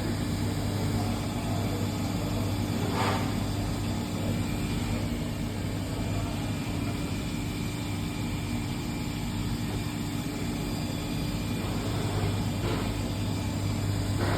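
Swiss-type CNC lathe running, a steady machine hum, with a brief burst of noise about three seconds in.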